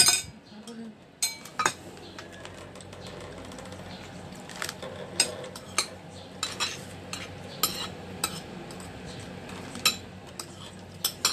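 Metal spoon clinking and scraping against a plate while eating, about a dozen short, irregular clicks.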